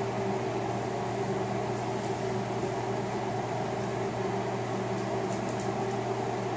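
Steady machine hum with several low tones held at an even level.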